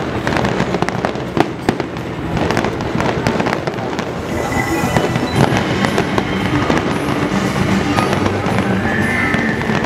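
Fireworks show: aerial shells bursting and crackling in rapid succession, with the show's accompanying music playing underneath.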